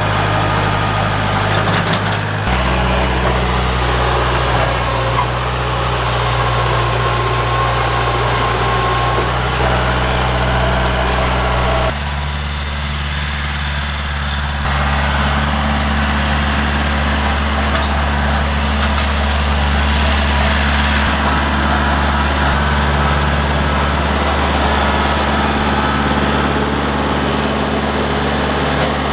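Mahindra compact tractor's diesel engine running steadily, its note changing abruptly twice.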